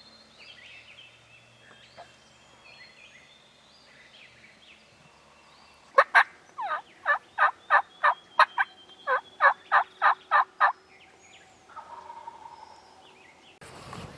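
Turkey call run by a hunter: a string of about fourteen loud, evenly spaced hen yelps, roughly three a second, starting about six seconds in. Faint songbird chirps come before it.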